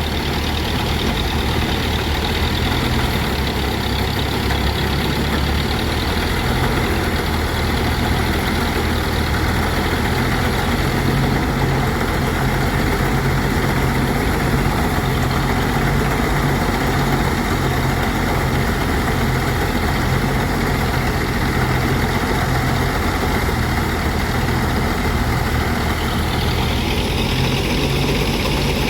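Engine-driven rice threshing machine running steadily, a constant engine hum under dense mechanical noise. The higher part of the noise changes about 26 seconds in.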